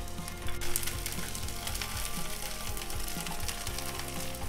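Chopped onions, garlic and dried red chillies sizzling and crackling in hot oil in a frying pan, with fresh coriander leaves just added. This is the tempering (tadka) for dal. The crackling gets louder about half a second in, and the mix is stirred with a wooden spoon.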